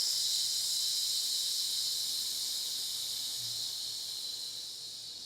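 A man's long, steady "sss" hiss on a slow exhale, the lung healing sound of Chinese medicine, fading gradually near the end.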